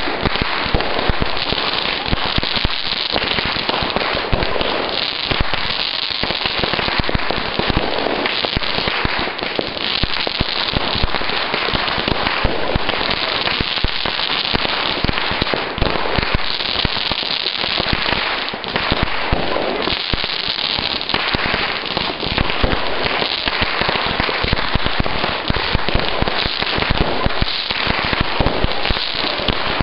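A dense, unbroken barrage of fireworks and firecrackers going off near and far. Bangs and crackles come many times a second, overlapping into a continuous clatter with no pause.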